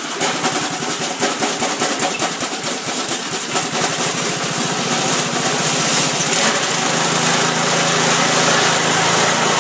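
Small gasoline engine that has sat for a few months starting up and running, its firing uneven at first, then settling into a steadier note about two-thirds of the way through.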